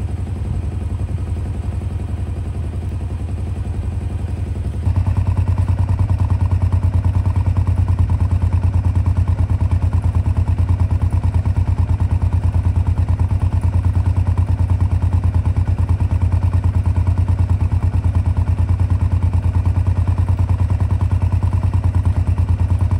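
1976 Honda CB500T's parallel-twin engine idling steadily with an even exhaust pulse, louder from about five seconds in, where it is heard from close behind the twin mufflers.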